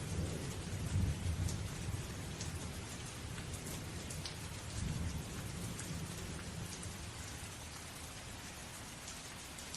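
Steady rain with scattered sharp drops, over a low rolling rumble that is strongest in the first seconds and dies away during the second half.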